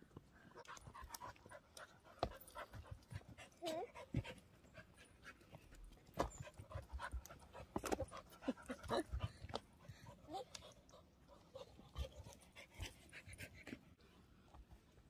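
Cocker spaniel panting, faint, mixed with scattered short crackles and taps of footsteps on bark chippings.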